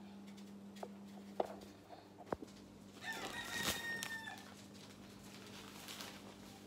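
A rooster crows once, about three seconds in, a pitched call lasting just over a second. Before it come a few sharp knocks and handling sounds as a washing machine's lid is opened and a plastic detergent bag is handled.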